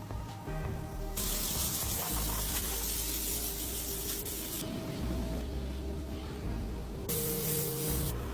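Two bursts of hissing spray, the first about three seconds long starting about a second in, the second about a second long near the end, over background music with a steady low bass.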